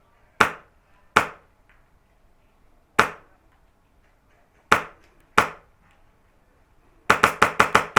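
Airsoft rifle firing: five single shots a second or so apart, then a rapid burst of about seven shots near the end.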